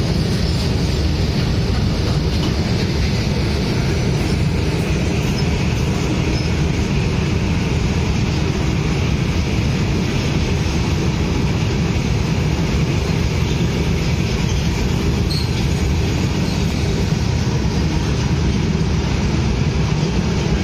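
Freight train of open steel box wagons passing close by at speed. The wheels and wagons on the rails give a loud, steady rumble that stays even throughout.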